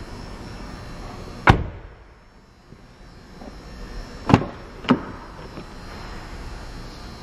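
A 2011 Lincoln MKZ's front door shut once, firmly, about a second and a half in. Later come two sharp clicks, half a second apart, as the rear door's handle is pulled and its latch releases.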